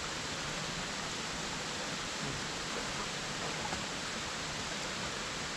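Running water, a steady even rush.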